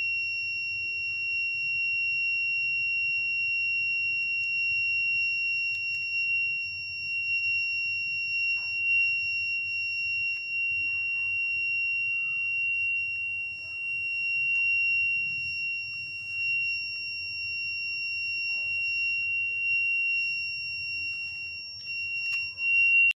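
Small 9-volt DC beep buzzer sounding one continuous, high-pitched tone without pulsing, as the fire-alarm circuit is triggered. A few knocks near the end.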